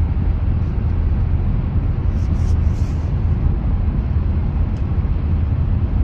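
Steady low rumble of engine and tyre noise inside a car's cabin while driving at highway speed through a long road tunnel.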